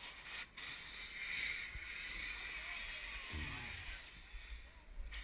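Steady rushing of river water, with a brief dropout about half a second in and faint distant voices.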